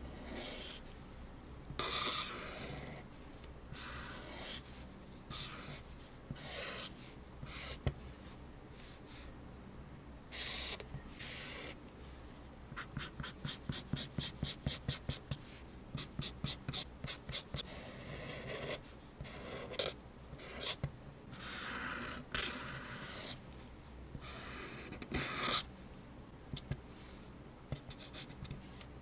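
Felt-tip marker drawing on paper: scattered scratchy strokes, with a run of quick hatching strokes, about five a second, in the middle.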